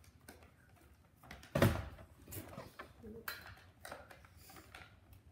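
Handling noise from a hockey helmet with a wire cage: a loud thump about one and a half seconds in, then several lighter knocks and rattles as it is turned over in the hands.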